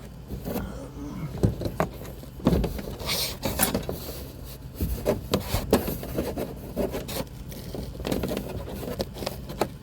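Irregular scraping, rubbing and knocking of a camper van's interior panel being worked loose and handled, with a longer scrape about three seconds in.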